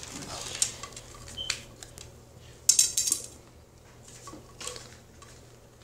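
Rods and plastic connector balls of a fort-building kit clicking and clattering against a tile floor as the frame is put together: a few separate clicks, with a short rattling clatter about halfway through that is the loudest.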